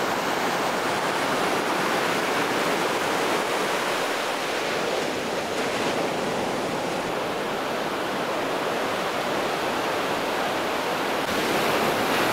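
Heavy ocean surf breaking and washing up over a rocky sand beach: a steady, even rush of waves.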